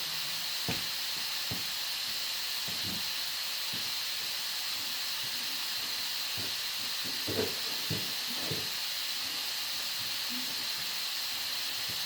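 Steady background hiss with a faint high whine underneath, and a few faint knocks and handling sounds, the clearest a little past the middle.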